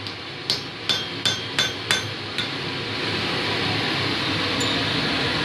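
Blacksmith's hammer striking a punch into a red-hot steel bar on the anvil, six quick ringing blows about three a second, stopping about two and a half seconds in. This is the first stage of punching the nail hole: driving a divot into one side of the hot bar. Steady background noise runs underneath.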